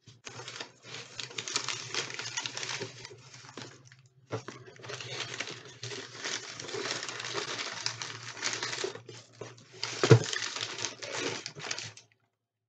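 Paper packing material rustling and crinkling as an item is dug out of a box and unwrapped, in two long stretches with a short break about four seconds in. A sharp knock, the loudest sound, comes about ten seconds in.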